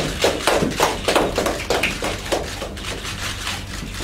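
Scattered hand clapping from a small group, a quick irregular run of claps that thins out after about three seconds.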